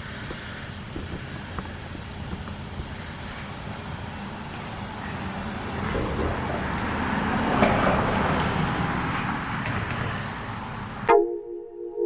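Electric pressure washer running, its water jet hissing steadily against concrete over a low pump hum, growing louder through the middle. It cuts off abruptly about a second before the end, and electronic music starts.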